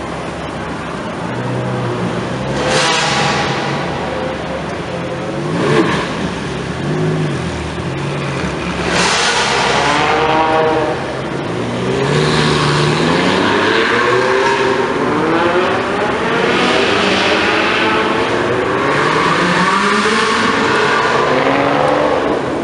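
A line of Ferraris, among them V12 grand tourers such as an FF and a 599 GTB, revving and accelerating away one after another. Rising rev sweeps come about three, six and nine seconds in. After that, several engine notes overlap, climbing and falling as more cars pull out.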